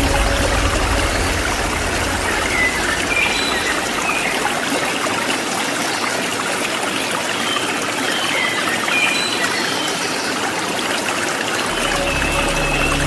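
Waterfall rushing steadily, with a few short bird chirps over it.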